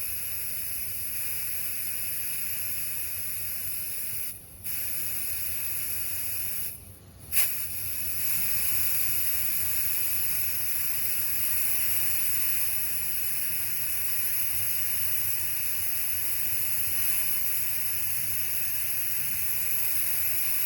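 Air hissing steadily out of a Ford F-150's front tire as it is deflated so the tire-pressure sensor registers the drop, with two brief pauses about four and seven seconds in.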